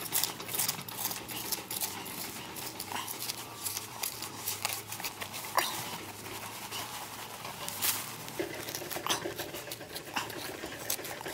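Small metal hand trowel scraping and digging into crumbly soil, with a gloved hand pushing clods of dirt aside: irregular scratchy scrapes and small clicks of falling earth.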